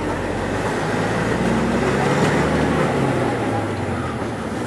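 Steady engine hum and road noise of a moving motor vehicle, heard from inside its cabin.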